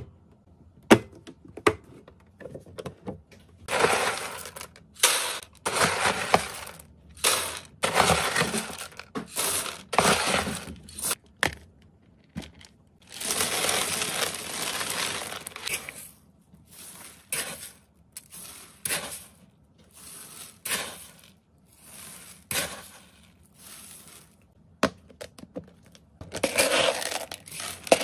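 Dry pet food pellets poured from a plastic scoop into a clear plastic tub, clattering and rattling in repeated pours of a second or two each, one longer pour about halfway through, with sharp clicks between pours. Very loud and crunchy.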